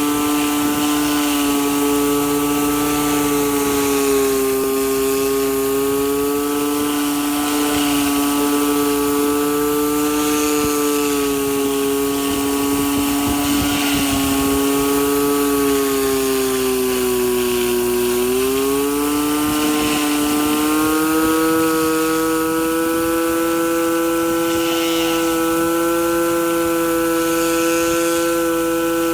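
Pressure washer running steadily: a motor's hum under the hiss of water spray from a rotating surface cleaner working a concrete driveway. The hum's pitch sags briefly about two-thirds of the way through, then recovers.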